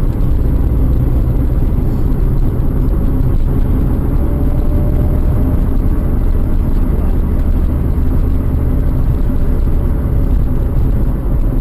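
Car driving: a loud, steady low rumble of engine and road noise picked up inside the vehicle by a dash-cam microphone.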